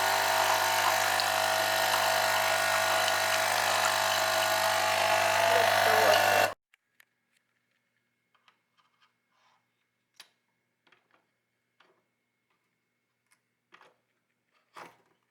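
New Nespresso coffee machine's vibratory pump buzzing steadily as it pushes water through during the first-use rinse, a not very pleasant noise, then stopping suddenly about six and a half seconds in. A few faint clicks and taps follow.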